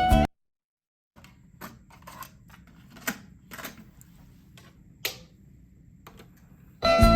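Cassette playback from the Nakamichi LX-5's line output in the gap between songs. The music stops abruptly and there is a moment of dead silence. Then comes a faint low hum with scattered sharp clicks and light crackle, and the next song starts loudly near the end.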